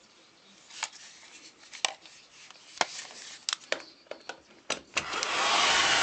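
A series of sharp clicks and knocks from handling the plug and socket, then about five seconds in the Philips HP8116 hair dryer switches on and its fan runs with a loud, steady rush of air.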